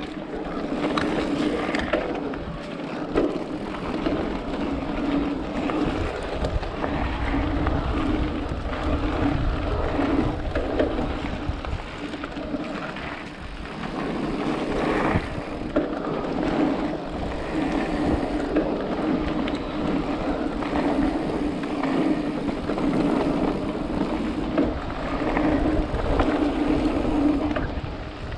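Giant Reign E+ electric mountain bike ridden fast down a dirt trail: knobby tyres rolling over packed dirt, the bike rattling and clicking over bumps, wind buffeting the microphone, and a hum that swells and fades.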